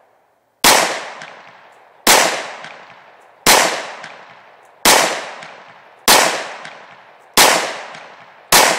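Glock 23 .40 S&W pistol fired seven times at a slow, steady pace, about one shot every 1.3 seconds, each crack followed by a fading echo.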